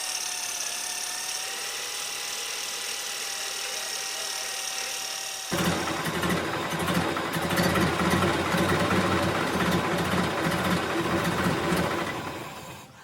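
Electric drill spinning a 3M bristle sanding brush: a steady motor whine, then about halfway through a sudden louder, rough scrubbing as the brush is pressed onto the engine block's gasket surface. The sound fades out near the end.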